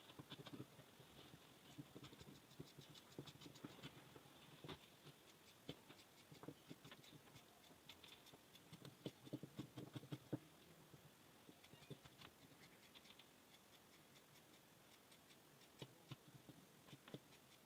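Faint scissors cutting through scuba fabric: irregular soft snips, clicks and rustles, busiest about nine to ten seconds in and sparser near the end.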